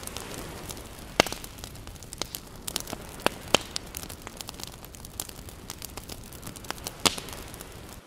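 Open fire burning, a steady hiss with irregular sharp pops and cracks; the loudest pops come about a second in, around three and a half seconds in, and near the end.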